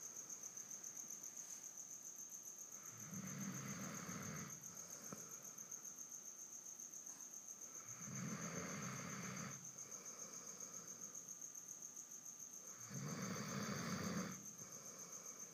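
A sleeping pet snoring: three slow, rasping snores about five seconds apart, each lasting about a second and a half. A steady, pulsing high-pitched trill runs underneath.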